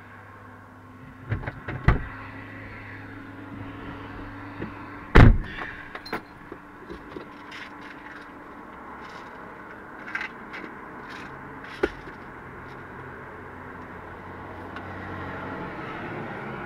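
Car running steadily, with a few sharp knocks and thumps over it, the loudest about five seconds in.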